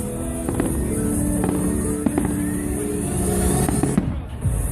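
Fireworks going off in a run of sharp bangs and crackles over loud music with held notes. A whistle rises in pitch over a couple of seconds, and the sound dips briefly near the end.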